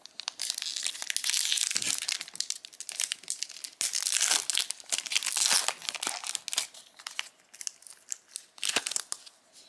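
Plastic foil wrapper of a Disney Lorcana trading-card booster pack crinkling and tearing open, in two long stretches of dense crackle, followed by a few scattered light clicks and rustles.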